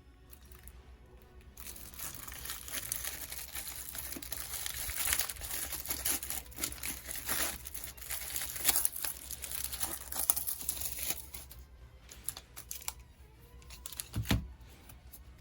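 Plastic and foil trading-card packaging crinkling and tearing as it is opened, densely for several seconds. After that come a few scattered clicks and a short dull thump near the end.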